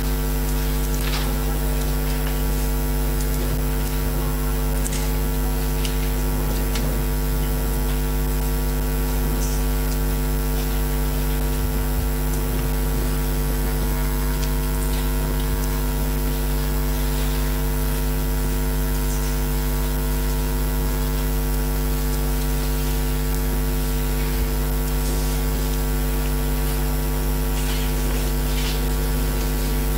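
Steady 50 Hz electrical mains hum with a stack of higher overtones and a faint hiss underneath.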